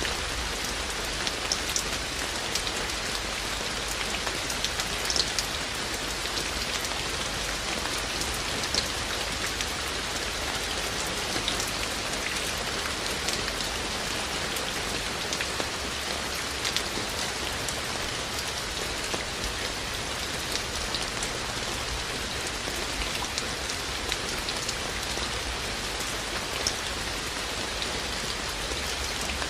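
Steady rain falling, with scattered sharper ticks of single raindrops striking close by.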